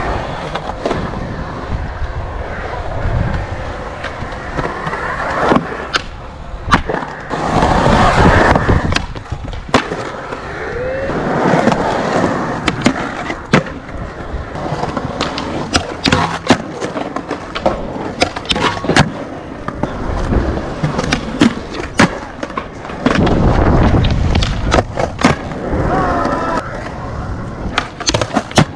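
Skateboard wheels rolling over concrete, with many sharp clacks scattered throughout as boards pop and land.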